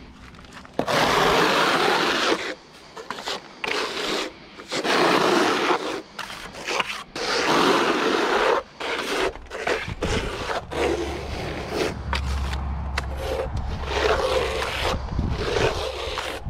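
Trowel scraping render across a wall in a series of strokes, each about a second long, stronger in the first half.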